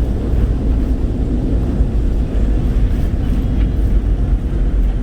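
A moving vehicle's steady low rumble of engine and road noise.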